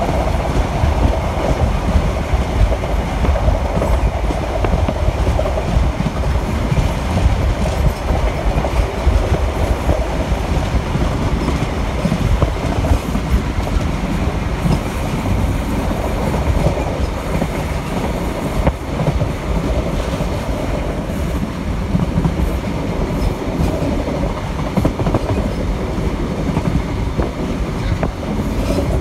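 Running noise heard inside a passenger coach of a diesel High Speed Train (InterCity 125) travelling at speed: a steady low rumble of wheels on rail.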